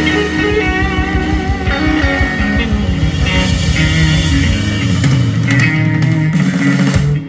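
Live blues-rock band playing loudly, electric guitars over bass and drums; the full band drops out near the end.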